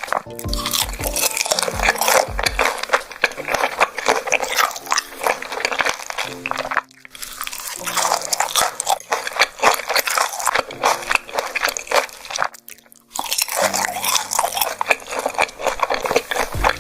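Close-miked biting and chewing of grilled beef large intestines, a dense run of wet clicks and crunches, with background music underneath. The eating breaks off briefly twice.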